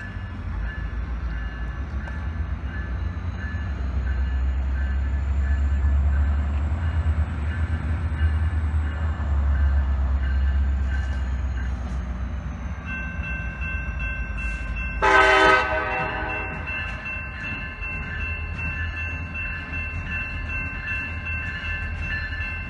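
EMD SD40-3 and GP38-2 diesel locomotives running light, their engines rumbling low and growing louder as they come closer, while a bell rings steadily. About fifteen seconds in, the lead SD40-3 sounds one short horn blast of about a second.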